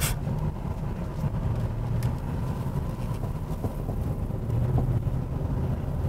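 Inside the cab of a 2002 Suburban, its 8.1-litre V8 runs steadily at part throttle along with tyre and road noise. The engine note swells slightly about five seconds in.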